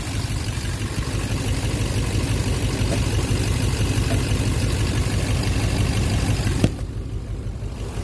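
Duramax LMM 6.6-litre V8 turbo-diesel idling steadily with the hood open. About two-thirds of the way in there is a sharp click, and after it the engine sounds softer and duller.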